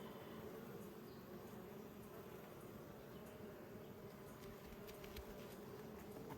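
Honeybees buzzing around an open hive: a faint, steady, even hum.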